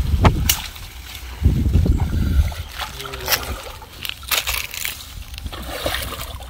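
Shallow muddy pond water sloshing and splashing as a person wades through it and reaches down into it with his hands, in a string of irregular splashes. A heavy low buffeting rumble sits under the first two seconds or so.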